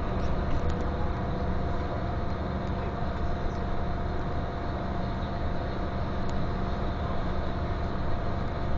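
Steady engine drone and road rumble heard inside a coach cabin moving at motorway speed, with a faint steady whine over it and a few light rattles.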